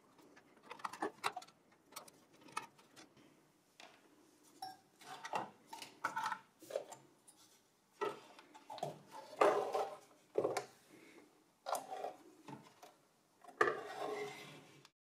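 A screwdriver backing out motherboard screws and the board being handled out of a sheet-metal PC tower case: irregular small metallic clicks, clinks and scrapes, with louder clatters about halfway through and near the end.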